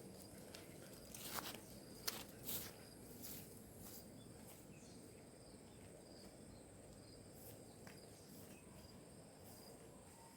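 Faint outdoor insect chorus, a steady high-pitched buzzing and chirring, with a few short rustles and knocks of handling or footsteps in the first three seconds.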